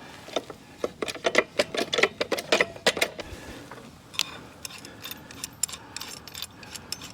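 Rapid metallic clicks and ticks of lug nuts being worked off a tractor wheel with a lug wrench, thick for the first few seconds and then sparser.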